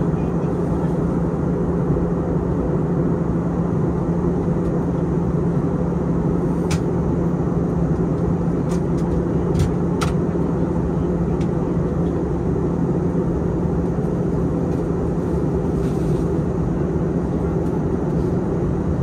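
Steady in-flight cabin noise inside an Airbus A321 twin-jet: engine and airflow noise with a constant low hum. A few faint clicks come between about a third and halfway through.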